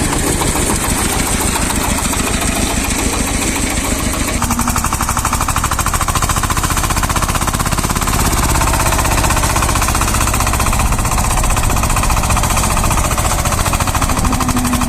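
Shifeng SF-240 minitractor's diesel engine running hard with a fast even pulse, working under the load of a rotary tiller cutting into the soil. About four and a half seconds in, the sound changes as a higher rattling tone joins.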